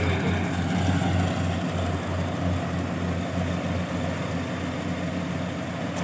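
Daedong combine harvester's engine running steadily with an even low hum.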